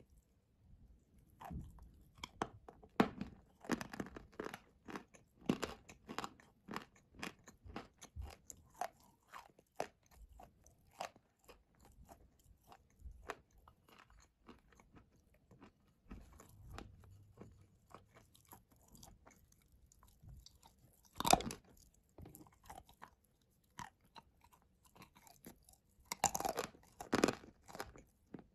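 Dry blue edible clay being bitten and chewed: a continual run of small crackling crunches. A few sharper, louder crunches stand out, the loudest about 21 seconds in and a cluster near the end.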